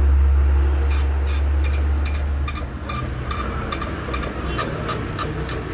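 Mini dot-matrix ticket printer (Matrix Point TM-P7645) printing a queue ticket: rapid rasping strokes of the print head, about three a second, starting about a second in. A low rumble is loudest under the first two and a half seconds.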